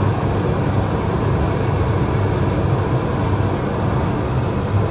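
Loud, steady whooshing rumble with a low hum, like a fan running.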